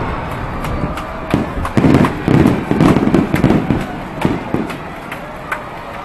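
Large aerial firework shell bursting overhead: the boom rumbles on, a cluster of loud bangs comes about one and a half to four seconds in, and scattered sharp cracks die away toward the end.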